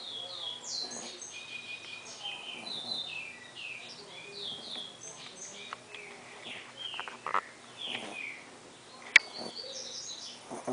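Birds chirping busily, many short downward-sliding chirps overlapping. There is a sharp click about seven seconds in and a louder one about nine seconds in.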